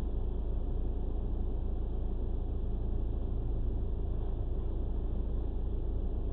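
Car engine idling at a standstill, heard from inside the cabin through a windscreen dashcam's microphone: a steady low rumble.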